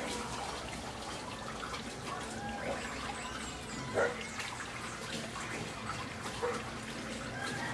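Kalamansi bush leaves rustling and stems snapping as fruit is picked by hand, with a sharp snap about four seconds in. Faint animal calls, likely chickens, sound now and then in the background.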